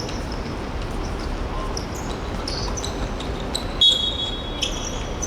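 Sports-hall game sound: short sneaker squeaks on the court floor over a background of voices, with a brief referee's whistle blast about four seconds in.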